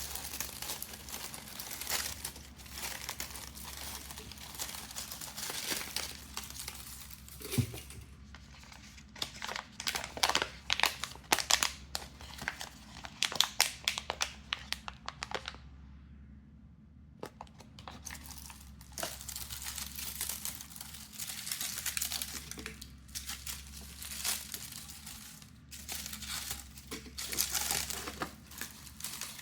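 Shipping packaging being handled and torn open by hand, with irregular crinkling and tearing and a brief pause about halfway through.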